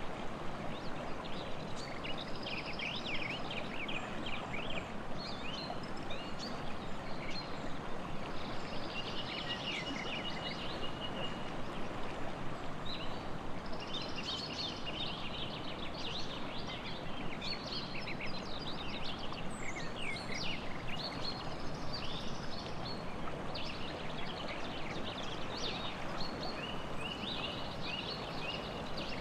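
Songbirds chirping and trilling over the steady rush of a stream.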